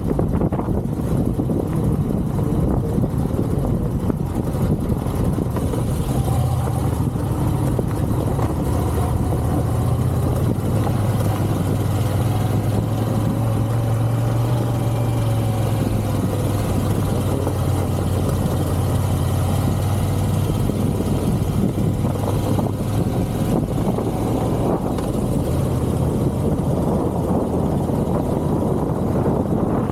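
Motorcycle engine running at a steady, moderate speed under a constant rush of wind noise; its note strengthens about six seconds in, holds with small rises and falls, and eases again near the end.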